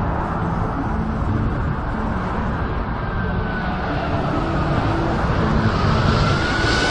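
Boeing 747 jet engines on low final approach, a loud rumble that grows louder toward the end, with a faint high engine whine over it.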